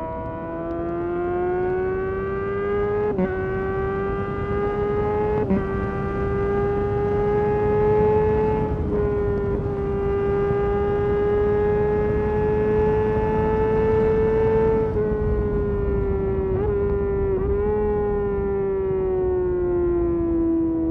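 2022 Kawasaki ZX-6R's inline-four engine under way. Its pitch climbs with two short breaks at gear changes, about three and five seconds in, then holds steady for several seconds. It falls away near the end with two quick dips as the bike slows.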